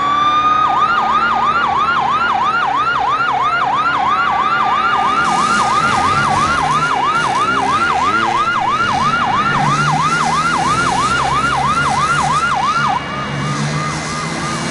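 An emergency vehicle siren in fast yelp mode, sweeping up and down about three times a second, with a slower rising and falling wail underneath. Near the end it drops to a quieter yelp.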